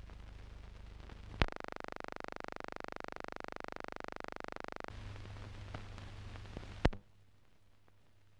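Run-out noise of an old film soundtrack: a low hum broken by two sharp pops, the first about a second and a half in and the second about seven seconds in. For about three and a half seconds after the first pop a steady, harsher buzz sounds, and after the second pop only faint hiss is left.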